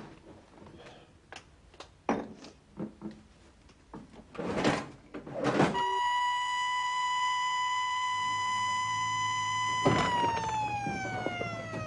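A few scattered knocks and clatter, then a loud siren starts about six seconds in: one steady held note that, after about four seconds, winds down and falls in pitch.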